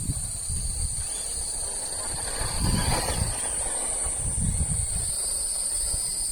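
Cicadas singing, a continuous high-pitched buzz, with irregular low rumbling underneath and a brief rushing swell about halfway through.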